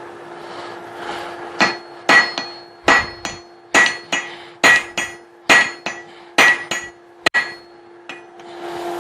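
Blacksmith's hand hammer striking hot steel on an anvil, about eight ringing blows roughly a second apart, with light bounce taps between them, starting about a second and a half in. A steady hum runs underneath.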